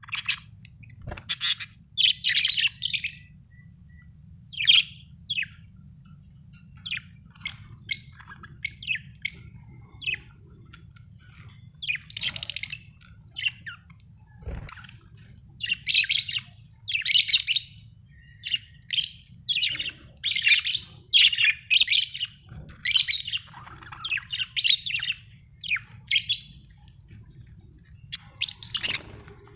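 Budgerigars chirping and warbling in short bursts and bunches of quick high chirps, with a low steady hum underneath.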